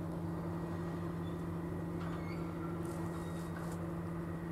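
SM42 diesel-electric shunting locomotive's diesel engine idling steadily with an even low hum.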